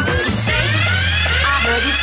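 Electronic dance music of a cheerleading routine mix, with several rising sweep effects and a long held bass note that starts about half a second in.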